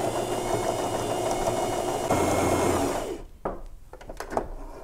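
Brother LX3817 sewing machine stitching steadily for about three seconds, then stopping. These are the first stitches with its quick-set bobbin, sewn without the bobbin thread drawn up first. A few short clicks follow as the machine is handled.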